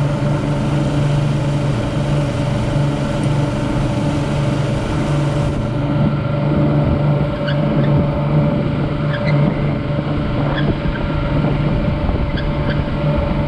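A towboat's engine running steadily under load while it tows a disabled boat, a low even drone with the hiss of water and wind under it.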